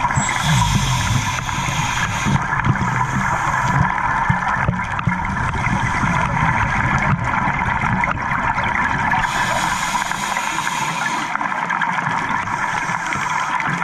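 Underwater sound through a dive camera's housing: scuba regulator exhaust bubbles rush and gurgle twice, once near the start and again about two-thirds through, as a diver breathes out. A steady underwater hum runs under them.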